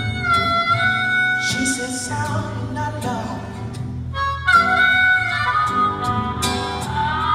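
Live acoustic music: a harmonica plays held, sliding notes over an acoustic guitar.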